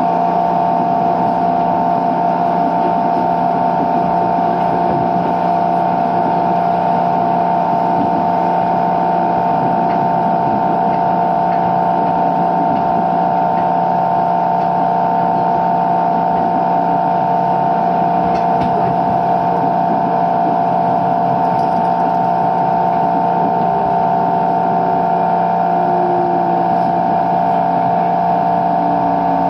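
Steady whine of the motor-generator (MG) of a JR 205 series 600 electric train car, heard from inside the car over its rumbling running noise. The whine is several fixed tones, the loudest a bright pair in the middle range, and it is an abnormal MG noise.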